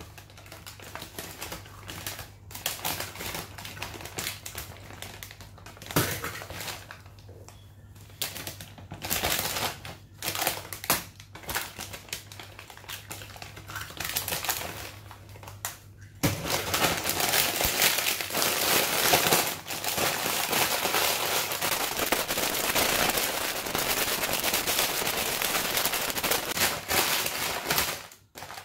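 A foil potato chip bag crinkling and the chips inside crackling as hands work the bag. About sixteen seconds in it turns into a dense, continuous crunching and crinkling as the chips are crushed and kneaded in the bag with a raw egg.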